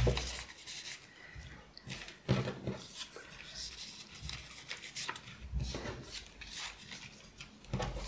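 Paper photo cards being slid into a clear plastic sleeve pocket and pressed flat, giving irregular rustling and crinkling with a few short taps.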